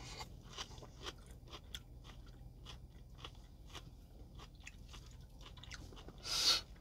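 A person chewing food close to the microphone: soft, irregular mouth clicks and light crunches, several a second. Near the end there is one short, louder rush of noise.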